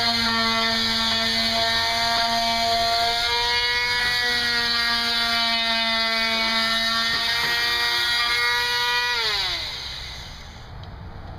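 Electric sander's motor running with a steady high whine on teak, then switched off about nine seconds in, its pitch falling as it winds down.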